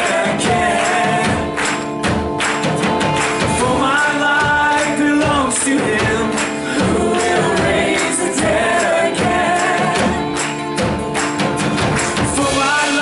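Live worship music: a band with tambourine playing while singers carry a melody in an upbeat gospel style.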